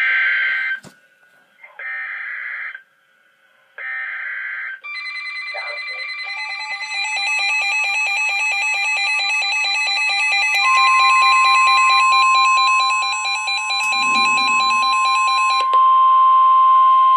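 EAS weather alert signal: three short bursts of SAME digital header tones, announcing a tornado warning. They are followed by a pulsing electronic alarm of several tones, with a steady single-pitch warning alarm tone joining about ten seconds in.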